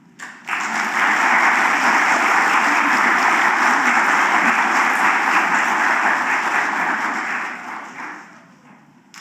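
Audience applauding at the end of a choir song. The clapping starts about half a second in, holds steady, and dies away near the end.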